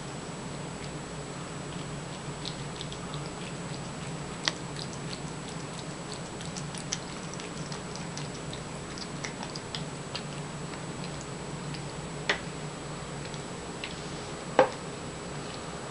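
Siamese cat eating cat food from a paper plate: faint scattered clicks of chewing and mouth on the plate, with a few sharper clicks about four, twelve and fourteen and a half seconds in, over a steady low hum.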